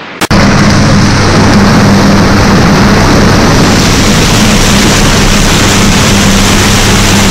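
Loud, steady rushing noise of water and machinery in a trout hatchery's indoor raceway room, with a low electric hum running under it like pumps or aerators. It starts abruptly about a quarter of a second in.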